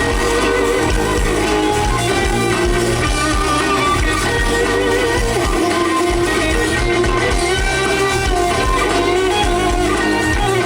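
Live rock band playing loud: electric guitar over a steady drum beat.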